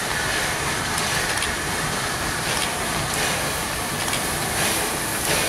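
FS Class 625 steam locomotive hauling a vintage passenger train slowly into a station: a steady rushing noise with a faint high tone and scattered, irregular clicks and knocks from the wheels on the track.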